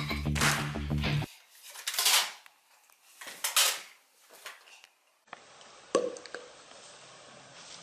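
Background music cuts off about a second in. A few clattering knocks of a plastic toy lightsaber on a hardwood floor follow, the loudest about three and a half seconds in. After that, faint room tone with a single click.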